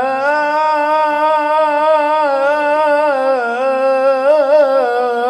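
A male voice sustaining one long melismatic note in Sufi Arabic praise singing (madih). It holds steady for about three seconds, then turns in quick vocal ornaments.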